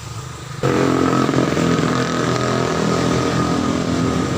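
A motor engine running loudly. It cuts in abruptly under a second in and keeps going, fading slightly toward the end.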